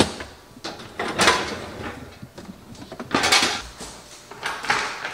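Dishes and glassware clattering in a dishwasher rack, in several separate bouts of clinking and knocking, then bumps of plastic storage buckets being moved.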